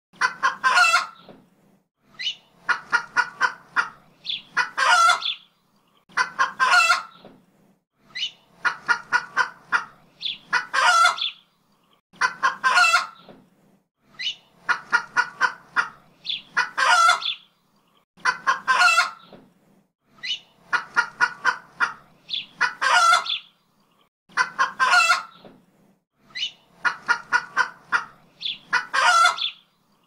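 Chickens clucking in quick runs, each followed by a longer call, repeating at even spacing about every two seconds like a looped farmyard sound effect.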